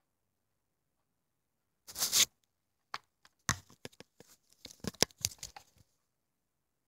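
Handling noise from the recording phone and a plastic Bop It toy: after about two seconds of silence, a brief scraping rush, then a run of irregular clicks and knocks for about three seconds.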